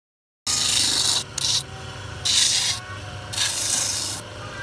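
Bench sanding drum running with a steady motor hum, as the edge of a shoe sole is pressed against its spinning sanding sleeve in four short grinding passes, each a loud rasp. The sound starts suddenly about half a second in.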